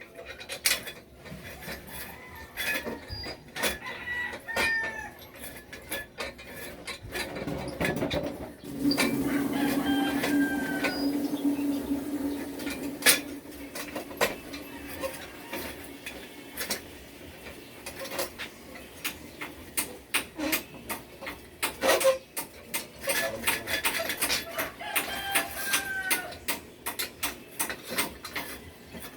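Rooster crowing several times, with scattered clicks and knocks throughout. A steady low hum, the loudest sound, runs from about eight seconds in for five or six seconds.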